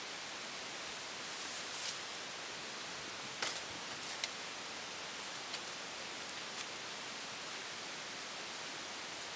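Steady hiss of recording noise, with a few faint, short clicks and knocks scattered through it, the sharpest about three and a half seconds in.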